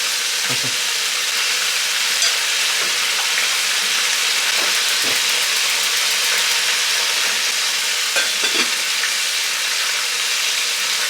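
Food sizzling in a hot frying pan as it is stirred, a steady hiss with a few light knocks of the utensil against the pan.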